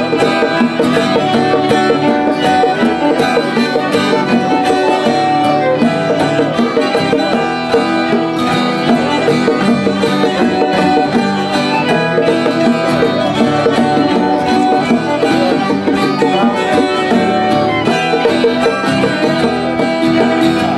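Lively string-band music with plucked strings and fiddle, in a bluegrass style, at a steady loud level.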